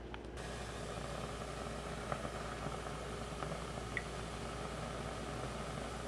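Steady low hum and hiss, like a running fan, with a couple of faint clicks.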